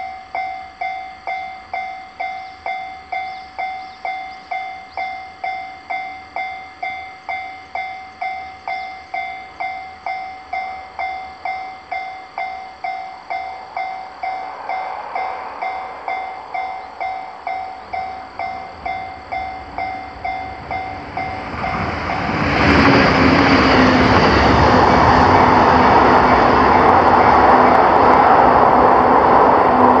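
Japanese level-crossing warning bell ringing a steady electronic ding about twice a second. From about two-thirds of the way in, a train passes over the crossing with a loud, continuous rush of wheels on rails that covers the bell.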